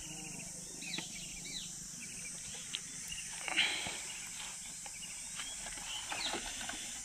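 Scattered bird calls, short falling chirps, over a steady high-pitched hiss of outdoor background, with a few faint clicks from hands working on the motorcycle.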